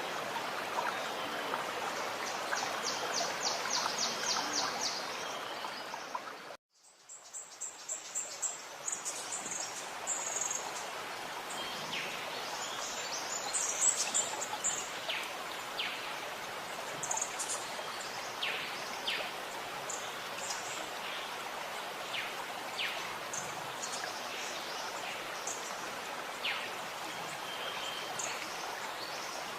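Running water gurgling steadily while forest birds chirp and call over it, with a rapid run of chirps a few seconds in. About six and a half seconds in, the sound cuts out abruptly for a moment, then returns with the water quieter and scattered bird calls.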